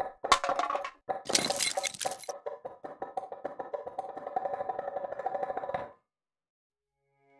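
Intro sting of percussive sound effects: pitched knocks, then a bright hissing sparkle burst about a second in, then a fast roll of pitched taps that cuts off suddenly about six seconds in. After a short silence, music with held notes begins near the end.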